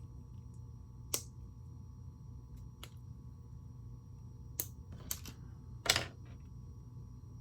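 Sharp plastic clicks of Lego pieces being pried apart with a brick separator: five separate clicks spread over several seconds, the loudest near the end, over a faint steady hum.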